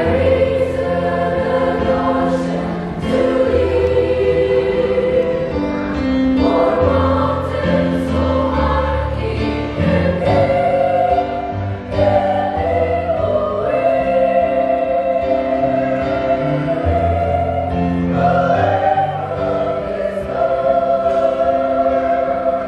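Children's church choir singing a sacred song together.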